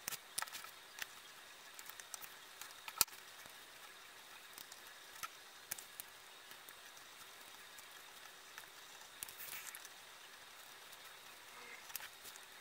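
Utility knife cutting leather along a paper pattern: faint, irregular ticks and scrapes of the blade, with one sharper click about three seconds in and a short rasping stretch about nine seconds in.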